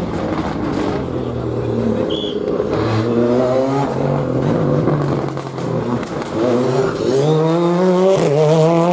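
Rally car engine accelerating hard through the gears. The revs climb and drop back at each upshift, several times in quick succession.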